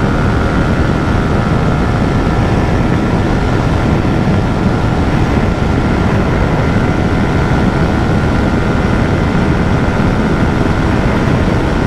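A single-cylinder Yamaha R15 motorcycle engine held at steady high revs in sixth gear near top speed, under heavy wind rush on the microphone. The bike is straining to get past about 140 km/h against the wind drag.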